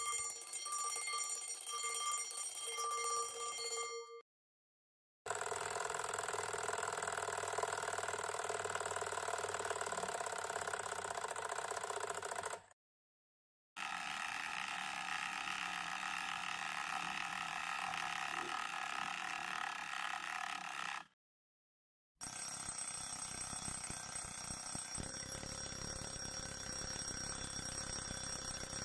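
A run of alarm clock ringing sounds played one after another: four separate steady rings, each built of several held tones, each stopping abruptly, with a second of dead silence between them.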